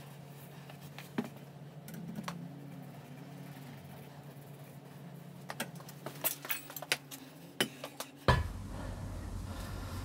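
Scattered sharp metallic clinks and knocks of workshop handling, most of them between about five and eight seconds in, over a low steady hum. A loud knock comes a little after eight seconds, followed by a louder low rumble.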